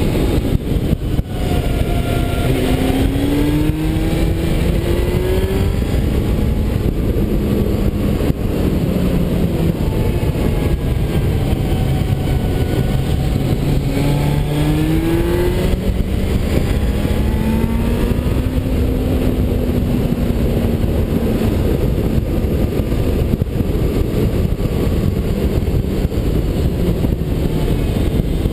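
Motorcycle engine heard from the bike itself, its pitch rising several times as it accelerates and dropping as it slows for the bends, over a steady rush of wind noise on the microphone.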